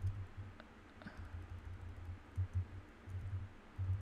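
Typing on a computer keyboard: soft, irregular keystrokes as code is entered.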